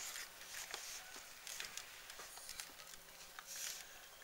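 Faint scratching of a wax crayon on colouring-book paper, with a few light ticks and a brief, brighter scratchy stroke near the end.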